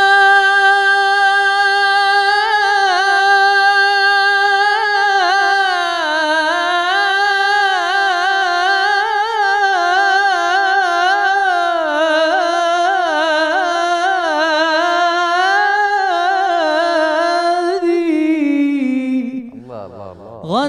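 Male munshid singing an unaccompanied melismatic phrase of an Islamic inshad on a drawn-out vowel. He holds a steady note for a couple of seconds, then winds through quavering ornamented runs, and the line falls away and breaks off near the end.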